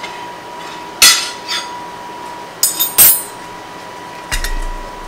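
Dishes and kitchen utensils clinking and knocking: a handful of sharp clinks spread over a few seconds, the loudest about one and three seconds in.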